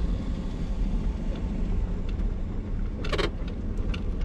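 Vehicle driving, with a steady low rumble of engine and tyres and a brief sharp sound about three seconds in.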